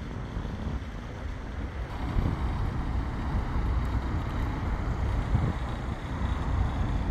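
Road traffic passing: cars, vans and a lorry going by with steady engine and tyre noise, which grows louder about two seconds in. Wind rumbles on the microphone underneath.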